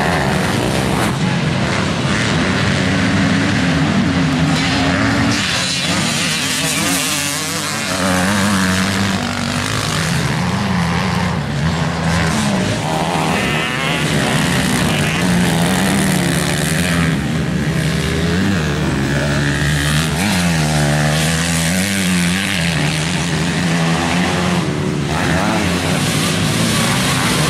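Several motocross dirt bike engines running on the track, their pitch rising and falling continuously as they rev and back off.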